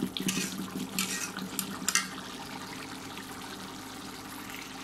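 Spice masala paste sizzling and bubbling in a karahi as it is fried (bhuna), with a spatula stirring and scraping the pan several times in the first two seconds.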